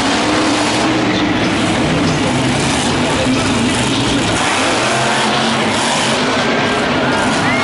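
Max-D monster truck's engine running hard and revving, a loud continuous roar whose pitch wavers; about four and a half seconds in, the deep low end drops away.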